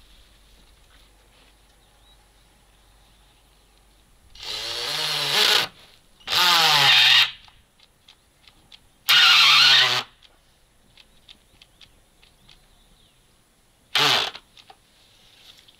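Cordless drill run in four short bursts into a wooden fence rail at a post. The first run winds up in pitch; in the second the motor pitch drops as it loads up.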